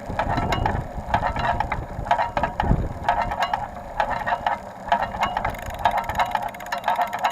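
Rear wheel of a Carrera Crossfire 2 mountain bike making a rattly clicking noise as it turns. The clicking comes in bursts that recur a little more than once a second, in time with the wheel's rotation. A low rumble runs under it for the first few seconds.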